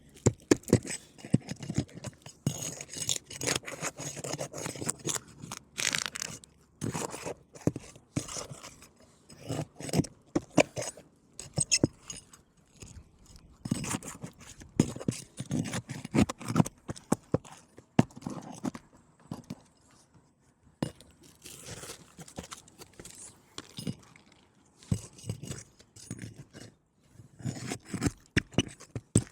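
A snake tool (a nail-removal tool) worked under roof shingles to pull their nails: irregular scraping, knocking and clicking that comes and goes in bursts.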